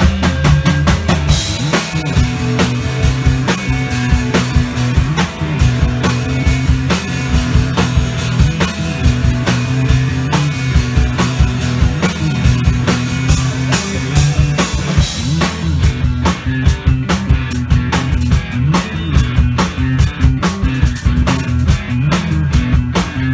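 Rock band rehearsing live: drum kit driving a steady beat under electric bass and electric guitar. The cymbal strokes stand out more sharply in the last third.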